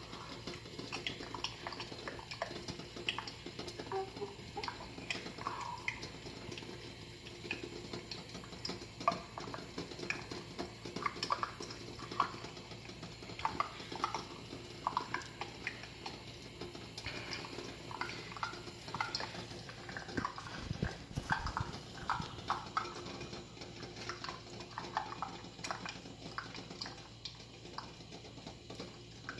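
Pot of eggs on the boil, giving irregular light clicks and ticks with some bubbling. The pot's whistle does not sound.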